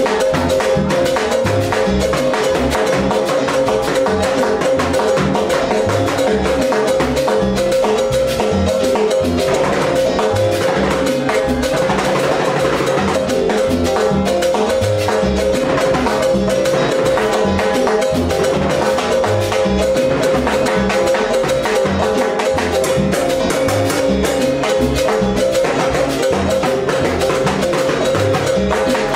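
Timbales solo in salsa: fast stick strokes on a pair of chrome timbales, with a steady low pulse and a steady held tone underneath.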